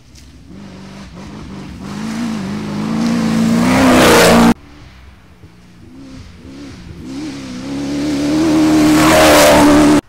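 Cross-country rally cars running flat out on a dirt track, each engine growing steadily louder as the car approaches, its note rising and dipping with the throttle. The first is cut off suddenly about four and a half seconds in, and a second car builds up in the same way to its loudest near the end.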